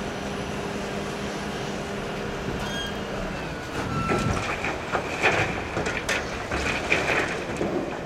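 Heavy diesel engines running steadily, then from about four seconds in a bucketful of pulverized concrete demolition debris pours into a tipper semi-trailer with a run of loud, irregular clattering crashes.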